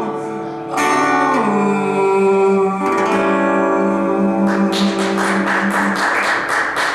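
Live band ending a song, with guitar chords and a sung note held and ringing out. About four and a half seconds in, audience clapping starts and carries on over the fading chord.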